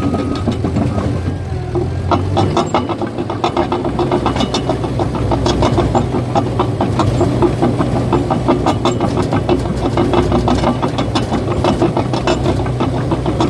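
Cat bulldozer's diesel engine running, joined about two seconds in by its steel tracks clanking in a fast, even run as the machine moves.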